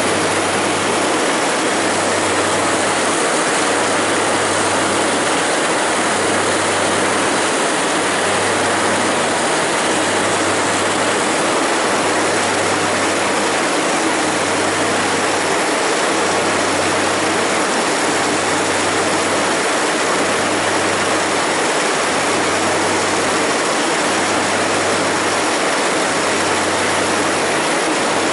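Heavy farm machinery running steadily and loudly, with a low throb pulsing about every second and a half.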